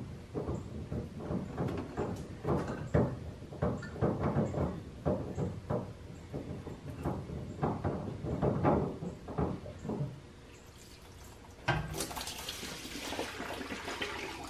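Spin-on fuel water separator filter being twisted off its housing by hand: a run of short scraping, creaking turns, about two a second. About twelve seconds in, the filter comes free and fuel starts running out of it with a steady splashing hiss.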